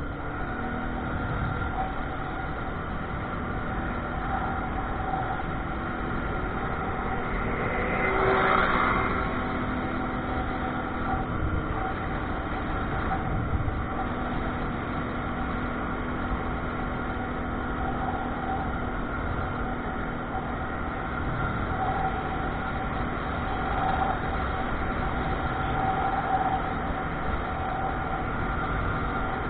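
Vehicle engine running steadily, with a louder swell about eight seconds in.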